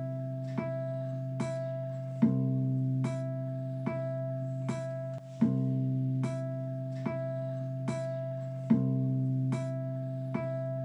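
Outro music: a plucked guitar playing a slow, repeating figure of notes, a little faster than one a second, with a stronger accented note every three seconds or so, over a steady held tone.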